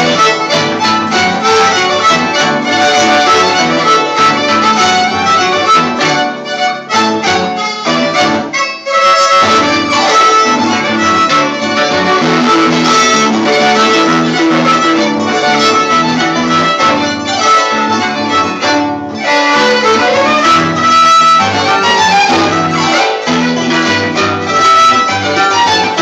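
Violin and Andean harp playing danza de las tijeras (scissor dance) music from Huancavelica together: a bowed violin melody over plucked harp strings.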